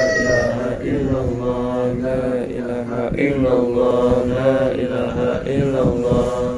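Voices chanting Islamic devotional verses in a slow melodic recitation with long held notes.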